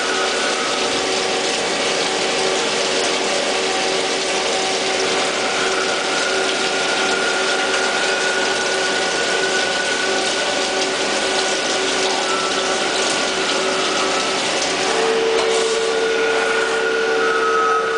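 Jenn Wei JW-21M CNC lathe turning a part under flood coolant: a steady hiss of cutting and splashing coolant with the constant whine of the spindle drive. About fifteen seconds in, a second steady whine comes in as the tool turret moves away from the part.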